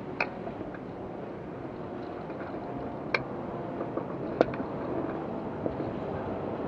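Steady wind and water noise aboard a Sonar keelboat sailing downwind under spinnaker, with a few sharp clicks, the loudest about four and a half seconds in.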